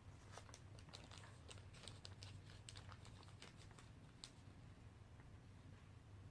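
Near silence: faint scattered clicks and crinkling over a low steady hum, mostly in the first few seconds.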